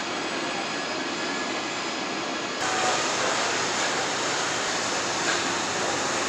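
Steady machinery noise on a truck assembly line, an even hiss and hum with no distinct strokes. About two and a half seconds in it jumps to a slightly louder, brighter din.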